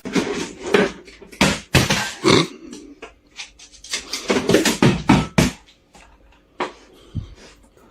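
Short animal sounds in irregular runs, about a dozen in all, with the busiest run a little past the middle.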